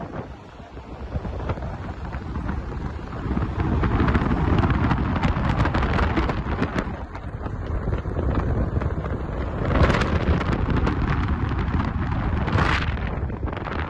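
Wind buffeting the microphone over a steady low rumble of road traffic, with two brief louder hissing surges near the end.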